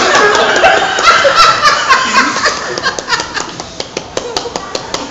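A man imitating a Tobata walking tractor's engine with his mouth and cupped hands: a run of sharp clicks, with laughter over the first part.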